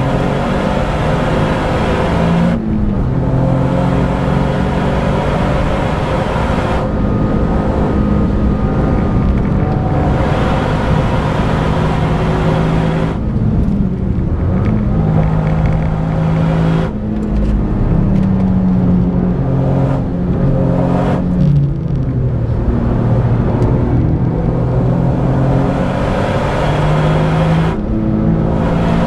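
Toyota GR Yaris's 1.6-litre turbocharged three-cylinder engine under hard acceleration on track. The engine note climbs in pitch and drops back every few seconds as the manual gearbox is shifted up and the car brakes for corners.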